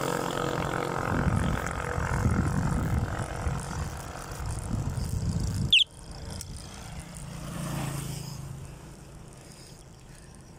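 Small motorcycle engine running close by with a steady low hum. About six seconds in it cuts off suddenly after a sharp click. Another motorcycle's engine then swells briefly as it passes and fades away.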